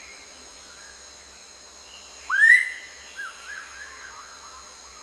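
A bird's whistled call: one loud, quickly rising whistle about two seconds in, followed by several softer short notes, over a faint steady high-pitched background drone.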